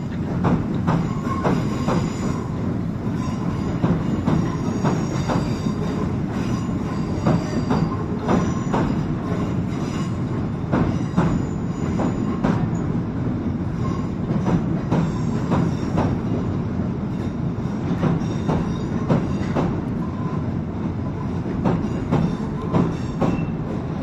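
A train running past with wheels clicking over the rail joints and a faint high wheel squeal over a steady rumble.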